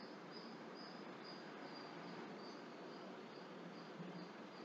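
Faint room hiss with an insect chirping in short high pulses, about two to three a second.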